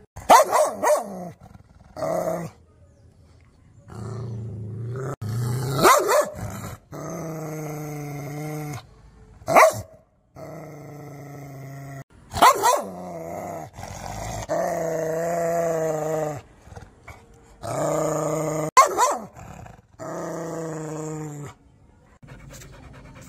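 Rottweiler growling in long, steady snarls, broken by several loud, sharp barks.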